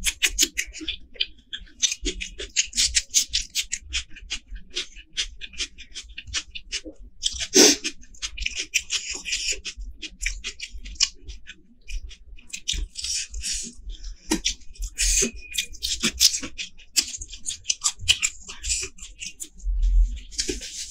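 Close-miked chewing and mouth sounds of a person eating rice, curry and fried prawns by hand: a dense run of quick, crisp, wet clicks, with one louder burst about seven seconds in.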